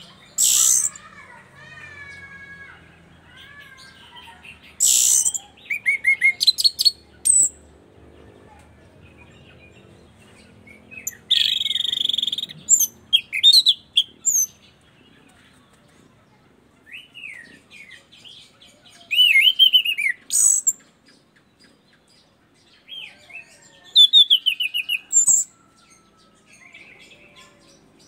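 Caged punglor thrush singing in loud bursts of high-pitched rapid trills and slurred whistled notes, about seven phrases with short pauses between them.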